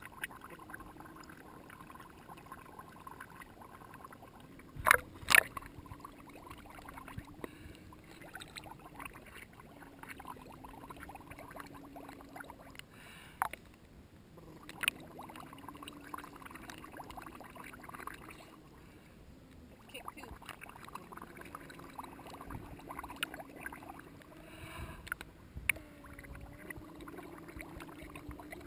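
Muffled pool water heard through a camera at the waterline, sloshing and gurgling softly as a toddler kicks and blows bubbles. A few sharp knocks or splashes stand out, the loudest two in quick succession about five seconds in.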